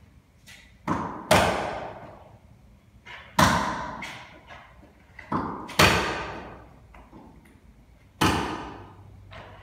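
Six loud, sharp knocks on wooden boards, spaced irregularly, each ringing out for about a second in a bare, echoing room.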